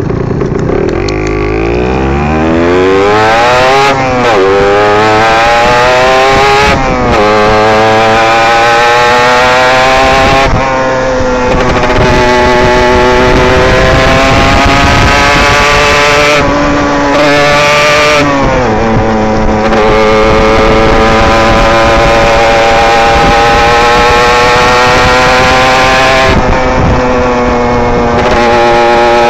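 Derbi GPR 125 motorcycle engine heard onboard under hard riding: it revs up through the gears with two quick upshifts in the first seven seconds, then holds high revs with a few brief throttle lifts and a downshift around the middle.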